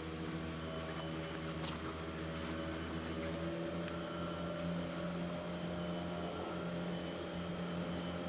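A steady droning hum with several low held tones, over a steady high-pitched hiss.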